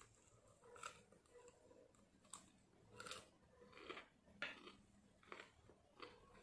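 Faint close-up chewing of crunchy fried chicken: a bite, then about eight short, irregular crunches as the crispy crust is chewed.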